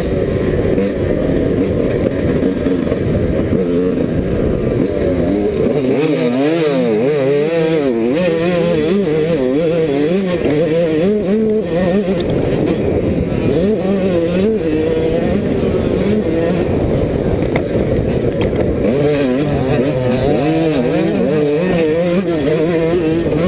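Onboard sound of a Yamaha YZ125 two-stroke single-cylinder motocross engine being ridden hard, its pitch rising and falling over and over as the rider works the throttle and gears.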